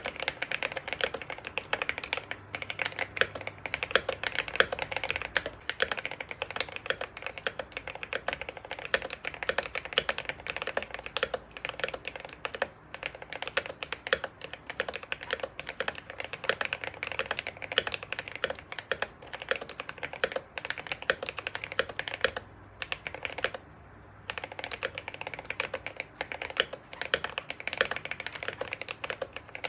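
Fast, continuous typing on a modded Gamakay K87 mechanical keyboard with lubed Gateron Yellow linear switches, PBT Cherry-profile keycaps and foam in the case: a dense run of key clacks, with one pause of about a second and a half roughly three-quarters of the way through.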